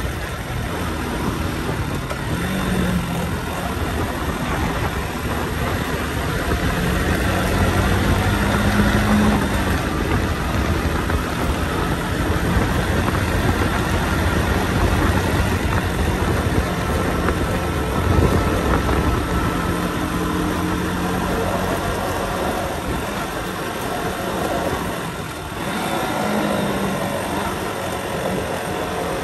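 Motorcycle engine running on the move, its note rising and falling with the throttle, under a steady rush of wind on the microphone. Near the end it eases off briefly, then picks up again.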